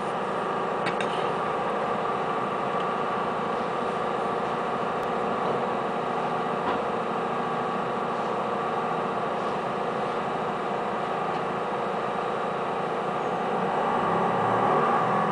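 Diesel railbus engine idling steadily while the railcar stands still, heard from inside the car; near the end the engine note rises as the railcar begins to pull away.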